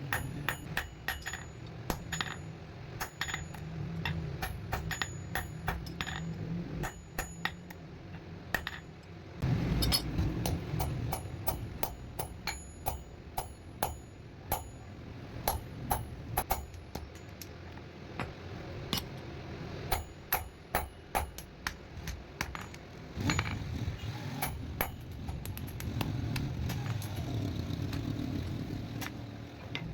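Hammer striking metal: many sharp metallic strikes at an uneven pace, over a low rumbling noise that fades in and out.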